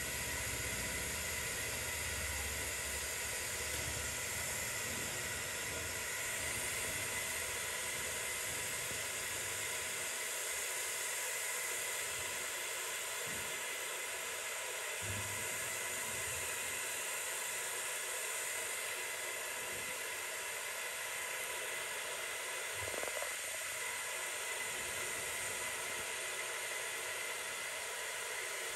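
A steady hiss with a faint, steady high tone, broken by a few soft low thumps.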